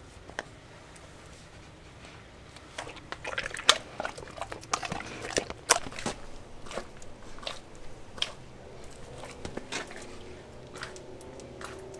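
Large dog chewing and crunching food, a quick irregular run of sharp crunches and clicks that thins out toward the end.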